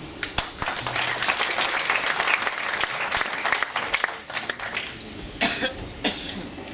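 Audience applauding, the clapping thinning out after about four seconds.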